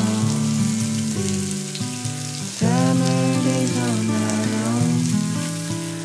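Food sizzling and crackling on a small one-person brazier grill, a steady crackle throughout, with background music of held melodic notes over it.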